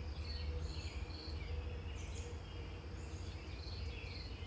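Birds chirping: repeated short high chirps with a couple of falling calls, over a low steady rumble.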